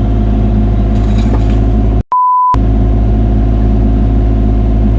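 Cat 303 mini excavator's diesel engine running steadily. About two seconds in the engine sound cuts out for about half a second and a single short steady beep takes its place, like an edited-in bleep.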